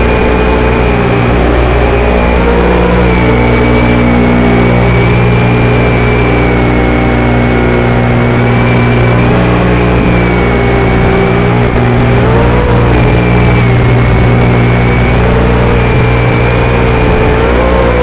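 Audio channel of an analog FPV video receiver: a loud, steady electrical buzz of many stacked hum tones, with a whine that wavers up and down in pitch. This is the interference caused by the video transmitter sending mono audio into a FatShark 5.8 GHz receiver module that expects stereo.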